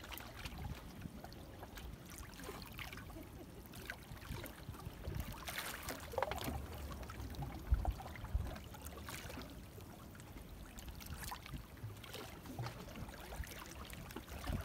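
Small waves lapping and splashing against jetty rocks: a steady wash of irregular little splashes with a low rumble underneath.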